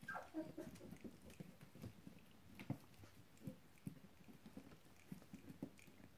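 Faint, scattered taps and clicks of puppies scrambling on a wooden floorboard floor and mouthing at a bare foot, with a short falling squeak from a puppy at the start.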